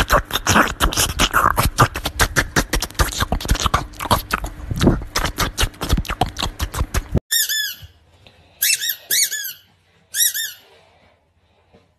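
A small dog licking and lapping at a squeeze-tube treat: a fast run of wet smacking clicks. About seven seconds in this stops, and a squeaky toy ball is squeezed about five times, giving short high squeaks.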